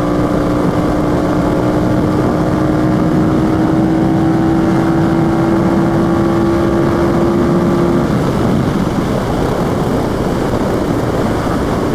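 Yamaha FZ-07 parallel-twin engine pulling steadily under way, its note creeping slightly higher. After about eight seconds the engine note drops away and wind rush on the microphone takes over.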